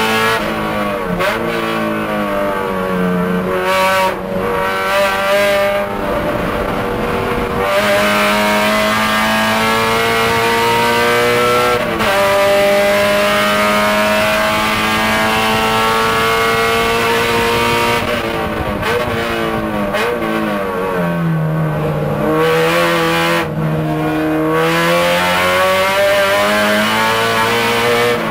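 Race-prepared Honda Civic's K24A2 four-cylinder engine heard from inside the cabin, working hard on track. Its pitch climbs under acceleration, with a gear change about twelve seconds in. It drops on braking for corners, early on and again about two-thirds through, then climbs again near the end.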